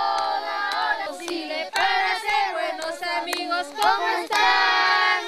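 Several high voices singing together, with long held notes and sliding pitches broken into short phrases.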